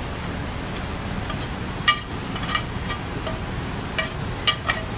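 A metal utensil scraping and clinking against a stainless steel sauté pan as food is pushed out onto a plate: several sharp clinks, the loudest about two seconds in and again about four seconds in, over a steady kitchen background noise.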